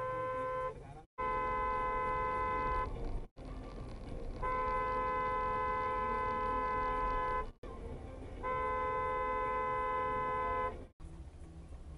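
Vehicle horn giving long blasts: one ending just under a second in, then three more lasting about one and a half, three and two seconds, each a steady two-note chord. These are long honks of reprimand aimed at traffic violators.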